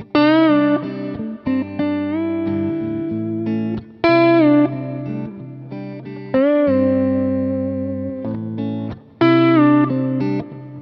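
Telecaster-style electric guitar with a one-piece abachi body and a Fralin neck, amplified, playing a sustained lead line. Four strongly picked notes, near the start, about 4 s in, about 6 s in and about 9 s in, each slide in pitch as the strings are bent, and they ring on over lower held notes.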